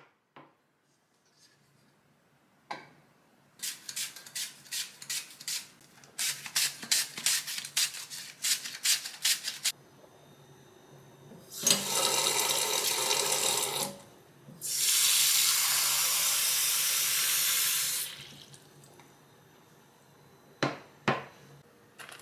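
Kitchen work: a run of quick, sharp knocks lasting about six seconds, then water running from a tap in two stretches of a few seconds each, and a few clicks near the end.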